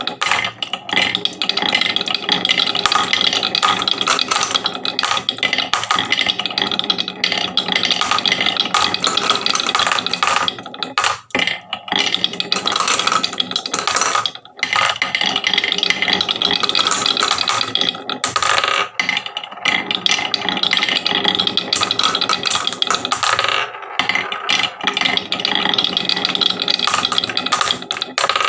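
Many marbles rolling and clattering continuously down a wooden HABA marble run track, a dense rattle of clicks with a few short lulls.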